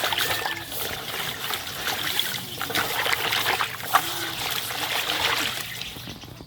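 Water running and splashing as lemongrass stalks are rinsed by hand, with irregular splashes and one sharper splash about four seconds in.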